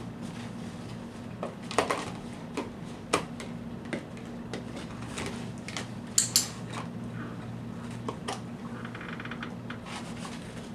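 Hard plastic rings and a ring-stacking toy knocking and clicking as a dog mouths the rings and drops them onto the toy's post: irregular taps, the loudest a sharp double clack about six seconds in, over a steady low hum.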